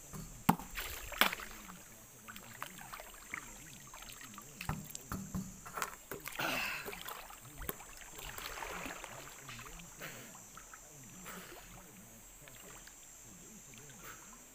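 Pool water splashing and sloshing as a person moves about in it playing with a basketball, with two sharp slaps on the water in the first second and a half and softer splashes a few seconds later.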